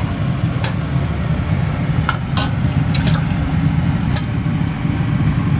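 Canned oden broth poured from a tin can into a small aluminium pot, with a few short clinks of metal on metal, over a steady low hum.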